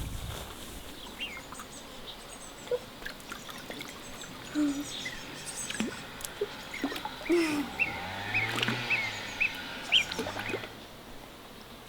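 Small birds chirping, with a quick run of short repeated chirps about two-thirds of the way through, among scattered light clicks and knocks.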